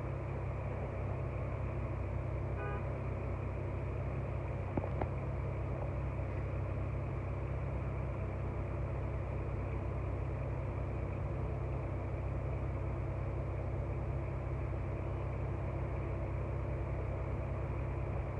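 Car driving: a steady low rumble of engine and road noise, with a faint click about five seconds in.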